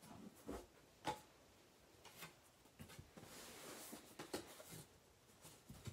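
Quiet handling of a sheet of graph paper being lifted off a board: a few light clicks and taps, and a soft rustle of paper sliding about three seconds in.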